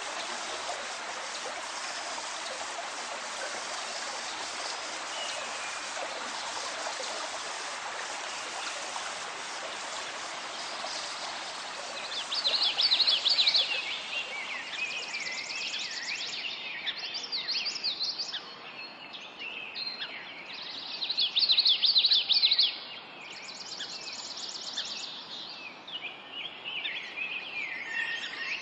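A stream running with a steady rushing sound, which fades after about twelve seconds as birds take over, calling in bursts of rapid high chirps and trills. The birdsong has two louder spells, one just after the stream fades and another several seconds later.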